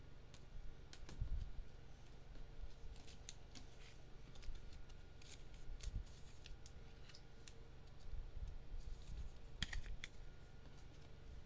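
Faint handling of foil-wrapped Topps Chrome trading card packs and cards: scattered small clicks, slides and crinkles.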